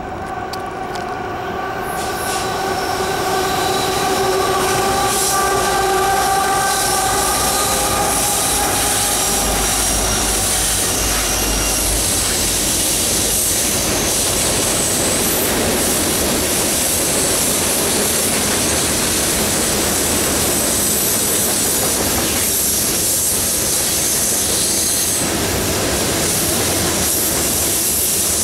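Norfolk Southern freight train passing close by: the GE ES44AC diesel locomotives come up with a steady chord-like drone of several tones for the first eight seconds and a heavy low rumble as they go by, then a long string of loaded covered hopper cars rolls past with steady wheel-on-rail noise and high-pitched wheel flange squeal on the curve.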